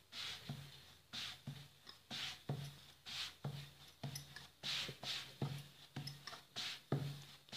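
Hand pressing and spreading jowar roti dough on a wooden board, a soft rubbing stroke with a light knock about twice a second as the dough is worked round.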